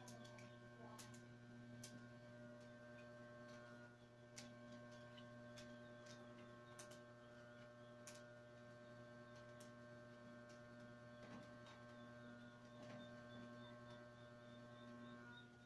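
Near silence: a faint steady electrical hum, with scattered light clicks from wicker strands being woven around the spokes of a round tray basket.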